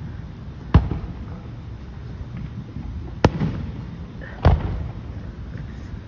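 Aerial fireworks exploding: three sharp bangs, one about a second in, another about three seconds in and a third a second later, each trailing off in a short low echo.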